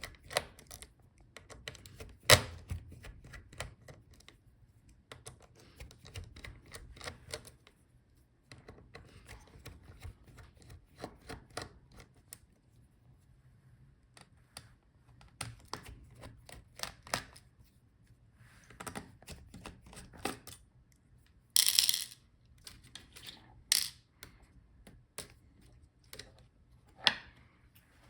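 Screws being unscrewed from a laptop motherboard with a small screwdriver: scattered light clicks and ticks, with a few sharper clicks as small metal parts are handled or set down, the loudest about two seconds in and a cluster near the end.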